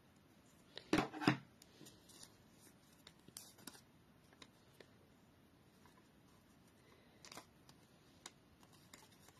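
A few sharp clicks and light scrapes of small craft magnets being taken off a pair of metal scissors, loudest as a double click about a second in. Then fainter clicks and rustles as a roll of glue-dot tape is handled.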